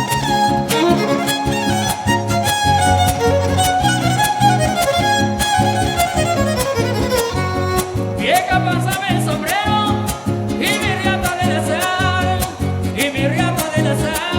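Son huasteco instrumental: a violin plays the melody, with sliding high notes in the second half, over a steady strummed rhythm from the trio's jarana and huapanguera.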